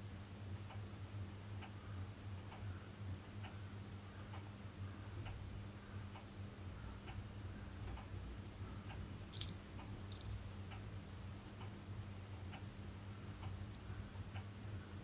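A clock ticking steadily, about one tick a second, over a constant low hum.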